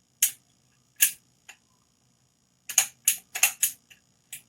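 Sharp plastic clicks of the Avid Power angle grinder's switch safety lock-off being worked, with the motor not running: a couple of single clicks, then a quick run of several clicks from about two and a half seconds in.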